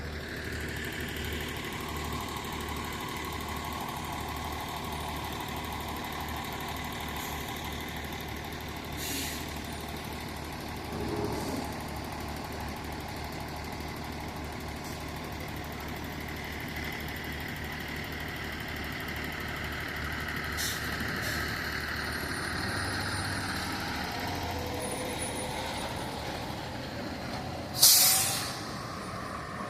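Fire truck idling steadily, with short air-brake hisses and one loud, sharp burst of air-brake hiss about two seconds before the end.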